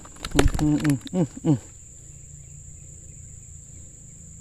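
Steady high-pitched drone of insects, crickets or cicadas, running throughout. In the first second and a half, a few knocks and several short vocal sounds that fall in pitch stand out above it.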